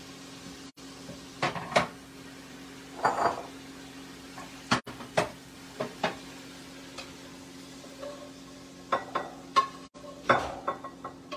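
Silicone spatula stirring and scraping strips of steak in a nonstick frying pan, giving scattered scrapes and knocks against the pan over a light sizzle. A cluster of knocks and scrapes comes near the end as the pan is lifted off the burner.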